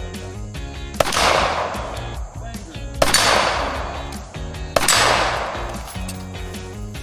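Three loud gunshots about two seconds apart, each with a long fading echo, over background music with a steady beat.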